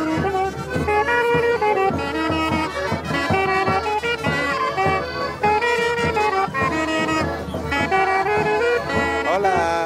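Brass band music: horns playing a stepped, repeating melody over a steady drum beat.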